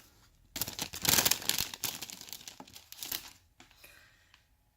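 Thin plastic parts bag from a model kit being torn open and crinkled by hand. The rustling starts about half a second in, is loudest around a second in, and dies away over the next few seconds.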